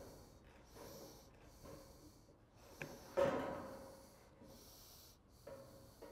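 Aviation tin snips cutting painted sheet-metal roofing trim: a soft crunch with each stroke, about one a second, and one louder clank about three seconds in.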